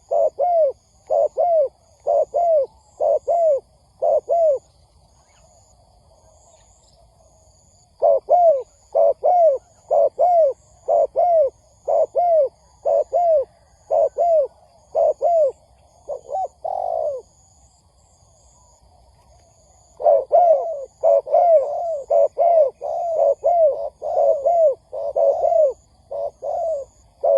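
Spotted dove cooing in quick runs of short, repeated coos, about two a second, in three bouts broken by pauses of a few seconds.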